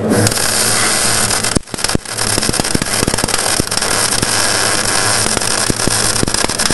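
Electric arc welding: the arc crackling and spitting steadily, broken off briefly about a second and a half in and then struck again.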